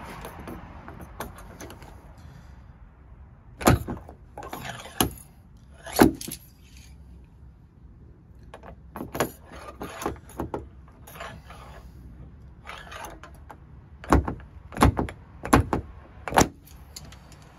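Slide hammer of a glue-pull dent repair kit being yanked against a glued tab on a car body panel: sharp metallic clacks, a few scattered ones, then four quick strikes about two-thirds of a second apart near the end, pulling the dent outward.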